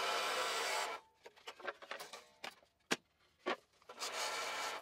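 Scroll saw running with its flat blade cutting a wooden workpiece; about a second in the steady saw noise cuts out, leaving a few seconds of light scraping and knocks as the wooden board is shifted on the saw table, and the saw starts running again near the end.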